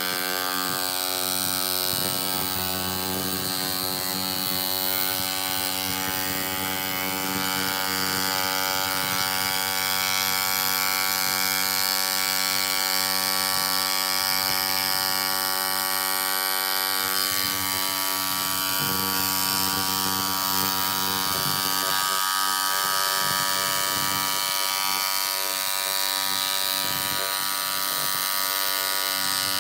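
Milwaukee 5317-21 hammer drill running steadily in hammer mode, pounding a rebar rod into rocky soil through a ground-rod driver bit; the rod sinks steadily into the ground.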